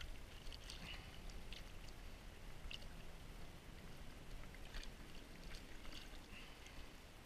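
Faint splashing and lapping of shallow river water around a king salmon held in it by hand, with a few small, sharp splashes scattered through.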